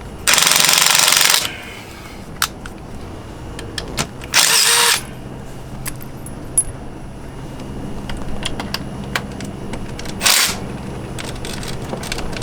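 Power impact wrench hammering in three short runs, the first about a second long, a shorter one a few seconds later and a brief one near the end, as it loosens two 6 mm Allen-head bolts on a Vespa GTS rear wheel assembly.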